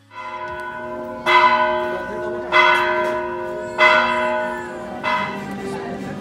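A church bell tolling in a steady rhythm: five strokes about a second and a quarter apart, each one ringing on as the next is struck. The last stroke is softer.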